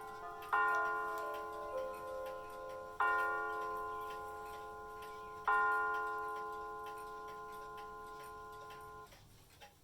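Bulova mantel clock's electronic chime striking the hour: three evenly spaced bell-like strikes about two and a half seconds apart, each ringing on and fading, with the last dying away near the end. The clock's faint tick goes on beneath.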